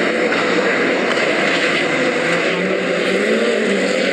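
Rallycross car engines running hard at high revs, their pitch rising and falling as they accelerate and lift.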